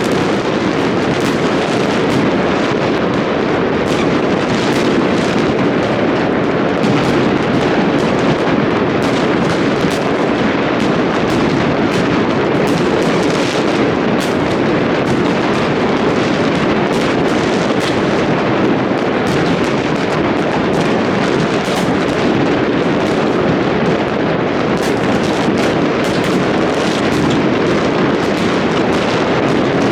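New Year fireworks going off en masse: a continuous din of many overlapping bangs and crackles with no break.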